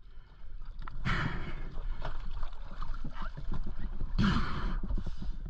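Water splashing and sloshing at the stern of a small boat as a diver comes aboard, with many short knocks against the hull and a louder splash about four seconds in.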